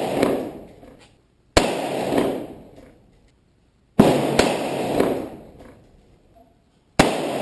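AR-15 rifle shots, four in all: single shots spaced a few seconds apart, with a quick pair in the middle, each followed by about a second of echo rolling away.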